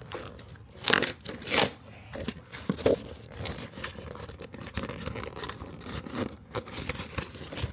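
A cardboard toy box being pulled and torn open by hand. There are two loud tearing rips about a second in and a second and a half in, then a run of smaller scraping and crinkling sounds.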